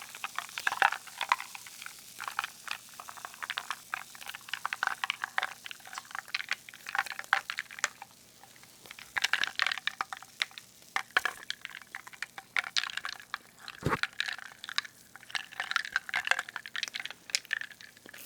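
Close-miked wet clicking and crackling of a drink and cream cake being eaten, with one low knock about 14 seconds in.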